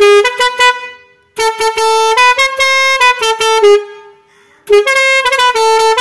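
Newly fitted compressor-driven musical air horn being tested, playing a tune in three loud phrases of stepped notes with short pauses between them.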